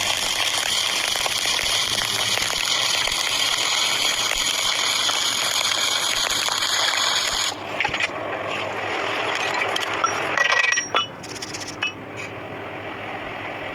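Electric arc welding on iron: a steady crackling hiss from the arc that stops about seven and a half seconds in. After it come a few short metallic clinks.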